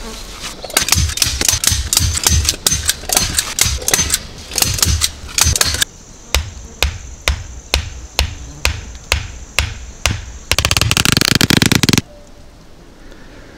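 Mosquito netting being fastened to a wooden frame by hand tool: a long run of sharp knocks, about two or three a second in the middle, giving way to a fast rattle for a second or so near the end.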